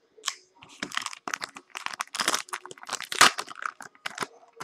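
Foil wrapper of a trading-card pack crinkling in a rapid run of irregular crackles as it is handled and torn open.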